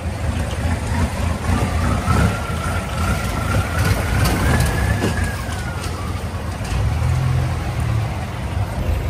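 Boat engine running with a heavy low rumble. A thin whine rises over a few seconds and then falls away.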